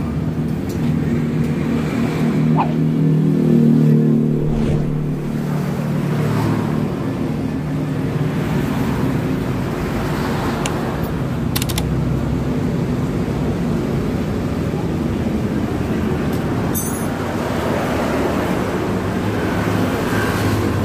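Steady low rumble of motor vehicles running, with a few faint clicks.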